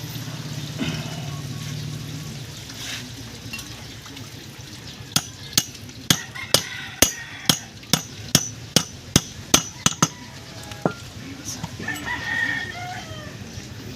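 About a dozen sharp metal taps, roughly two a second, from a hammer driving a 6207 ball bearing into place during a front differential overhaul. A rooster crows near the end.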